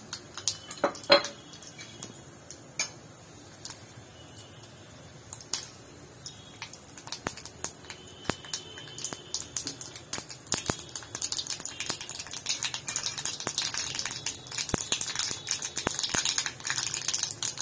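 Mustard seeds and urad dal frying in hot oil in a kadai: a few sharp clicks at first, then crackling and popping that grows thicker and louder from about halfway through as the mustard seeds splutter.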